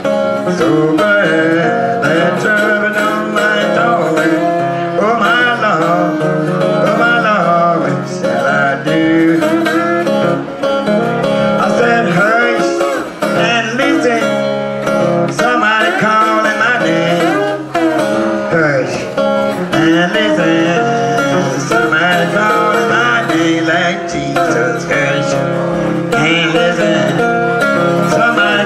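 A woman singing an acoustic blues song in the Piedmont blues style, accompanied by a plucked acoustic guitar.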